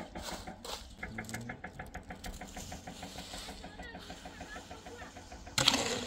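A small machine running with a fast, even ticking rhythm of about ten beats a second. A short, loud burst of noise comes near the end.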